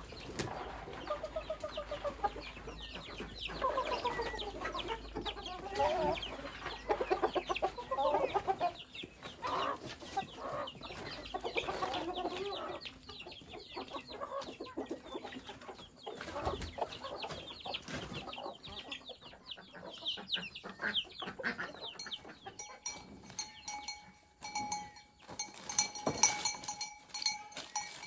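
Chickens clucking, several short calls overlapping, busiest in the first half. About two-thirds of the way in, repeated metallic clinks with a lingering bell-like ring take over.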